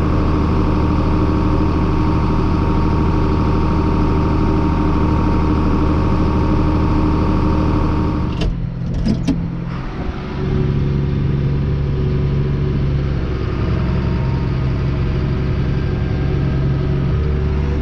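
Tractor engine running steadily under load. About eight and a half seconds in the sound breaks and dips, then the engine runs steadily again at a slightly different pitch.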